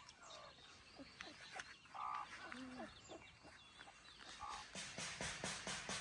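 Faint outdoor ambience with birds calling: a few short calls a couple of seconds apart. Near the end a rapid pulsing starts, about five pulses a second.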